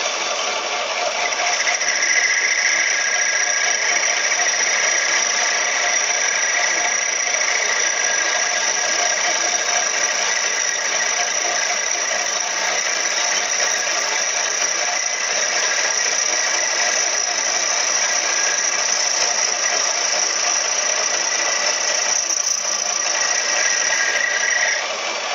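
A lathe running while a cutting tool turns down a spinning piece of hardwood, with a steady high-pitched squeal from the cut. Near the end the cutting stops and the squeal drops out, leaving the lathe running more quietly.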